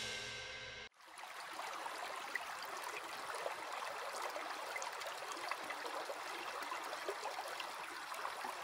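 Shallow creek water running over rocks: a steady babble with small splashes. The last of a music track fades out in the first second.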